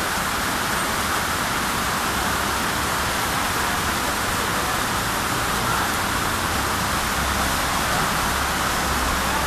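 Heavy rain pouring down steadily, a dense, even hiss with no letup.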